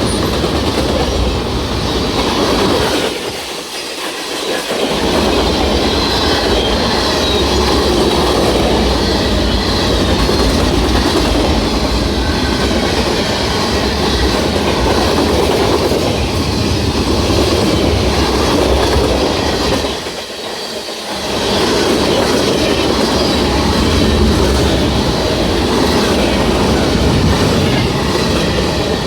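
Norfolk Southern mixed freight train rolling past close by: a steady rumble of freight cars with wheels clattering over the rail joints. The noise drops briefly twice, about three seconds in and about twenty seconds in.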